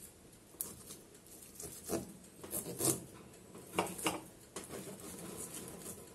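Kitchen knife cutting slits into the fat edge of a raw beef steak on a plastic cutting board: a handful of short scrapes and knocks of the blade against the board, the loudest a little under three seconds in.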